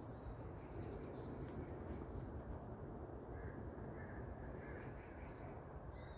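Small birds chirping and calling in quick, high notes, a cluster of chirps in the first second and another near the end, with a few fainter, lower calls in the middle, over a steady low background rumble.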